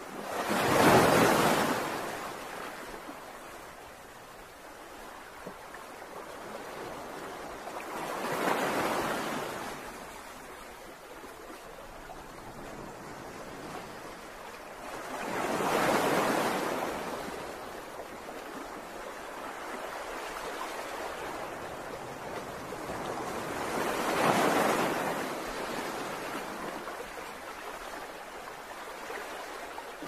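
Ocean waves breaking in surf: four waves about eight seconds apart, each swelling to a rush and fading away, over a steady wash of surf between them. The first, about a second in, is the loudest.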